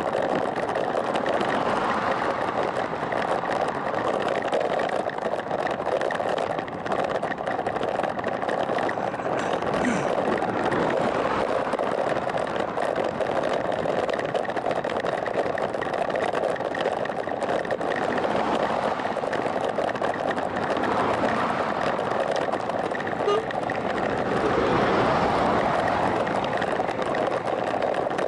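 Steady rushing wind and tyre noise on the microphone of a camera riding on a moving bicycle, swelling slightly near the end.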